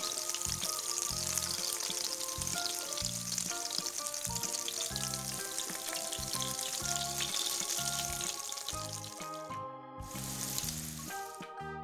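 Stuffed bitter melon rings sizzling in hot oil in a wok, over background keyboard music; the sizzle drops away near the end, leaving the music.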